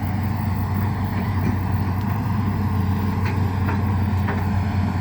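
Excavator's diesel engine running steadily at a constant low pitch, with a few faint ticks in the second half.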